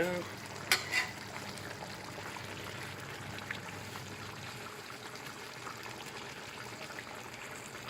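Chicken stew with onion and tomato cooking in a pot, a steady hiss of the food sizzling and simmering, with two sharp clicks about a second in.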